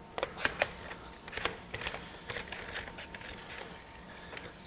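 One half of a two-piece steel handle being fitted into a Craftsman floor jack's handle socket: a string of light metallic clicks and knocks, loudest about half a second in.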